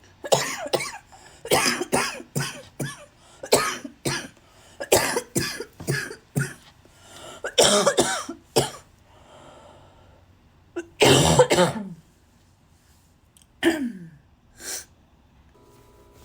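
A person with a cold coughing hard in repeated fits: rapid runs of short coughs for the first nine seconds, a longer cough about eleven seconds in, then two more single coughs near the end.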